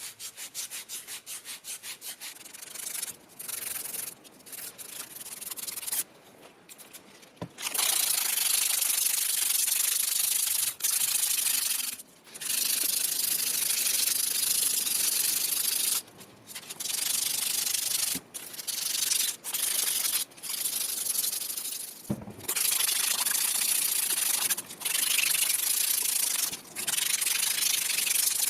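Sanding by hand on a part of a rusty old hand drill, an abrasive scratchy rubbing. It starts with quick short strokes, about five or six a second. Then come long, even stretches of rubbing, broken by short pauses.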